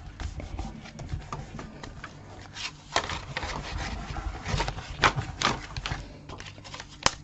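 Paper and card being handled by hand: soft rustling and rubbing with a few sharp light taps and clicks scattered through.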